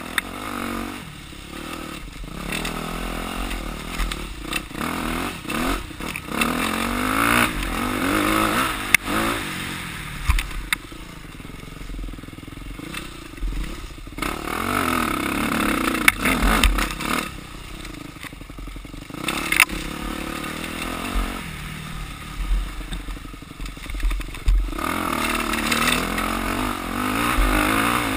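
Off-road motorcycle engine revving up and falling back over and over as the bike is ridden along a woods trail, with occasional sharp knocks and rattles from the bike over rough ground.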